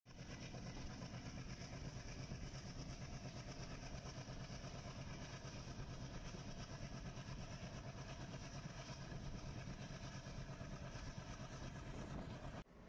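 Diesel-hauled passenger train running along the track, a steady rumbling running noise that cuts off suddenly just before the end.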